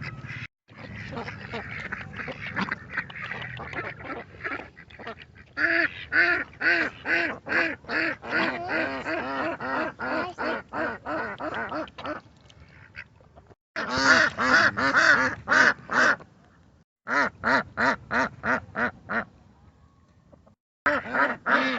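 Ducks quacking in fast runs of calls, about three or four a second, in several bouts broken by short pauses; the first few seconds are softer and more jumbled.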